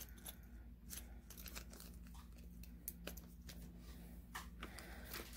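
Faint crinkling and scattered light ticks of small clear plastic zip-lock bead bags being handled.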